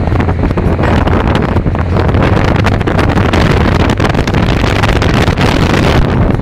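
Wind rushing over the microphone from an open window of a Mitsubishi Lancer driving along a sand beach, with a steady low hum of the car running underneath.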